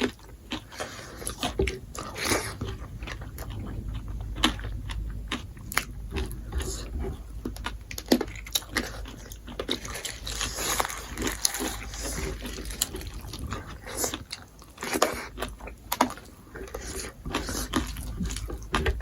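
Close-up eating sounds: chewing and biting into smoked pork, with wet smacks and sharp crunchy clicks.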